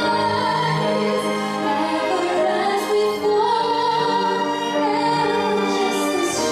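A woman singing in a classical, operatic style with wide vibrato, over sustained chords from a string orchestra.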